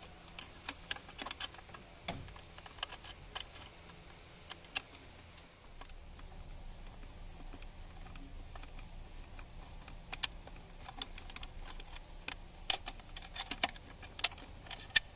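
Ratchet wrench clicking in quick runs as a bolt on an engine's water pump housing is turned: a run of clicks in the first few seconds, then louder, denser clicking from about ten seconds in.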